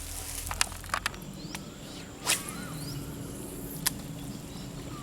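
Outdoor ambience by a pond, with a short rising-and-falling bird call repeated every few seconds and several sharp clicks, the loudest a little after two seconds in.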